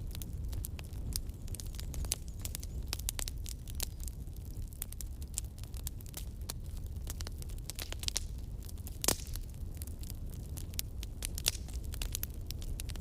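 Campfire burning, wood crackling with irregular sharp pops over a low steady roar of the flames; one louder pop about nine seconds in.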